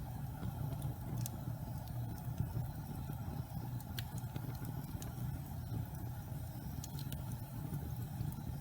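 Fire burning in a fireplace: a steady low rumble with a few sharp crackles, one about a second in, one about four seconds in and a quick cluster near seven seconds.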